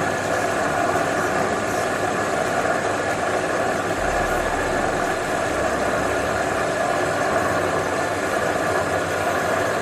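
Front-loading washing machine running a quick wash cycle: a steady mechanical running noise, with a deeper hum coming in about four seconds in.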